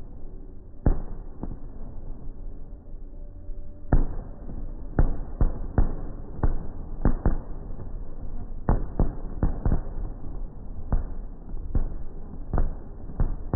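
Aerial fireworks shells bursting: more than a dozen sharp booms at irregular intervals, some in quick pairs, over a low rumble.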